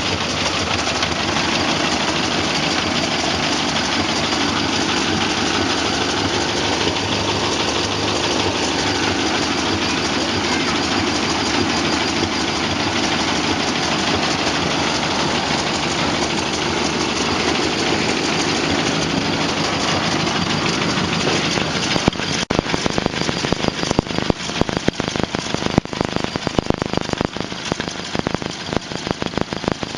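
1928 Ford Model A's four-cylinder flathead engine running, heard under a loud crackling buzz of spark-plug ignition interference picked up by the camera. About two-thirds of the way through, the steady buzz breaks up into separate, uneven clicks.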